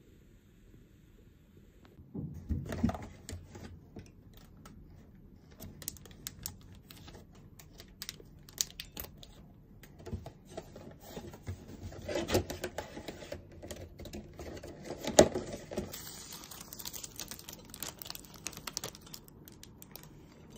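A cardboard cake box and cake slices on plates being handled: a string of light clicks, taps and rustles, with a sharp knock partway through and a papery rustle near the end.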